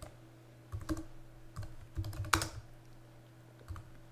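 Computer keyboard typing in short, irregular bursts of keystrokes, over a faint steady low hum.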